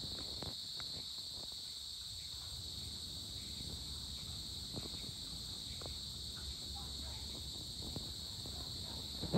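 Dusk insect chorus, a steady high-pitched trill, over a faint low rumble with a few scattered small clicks.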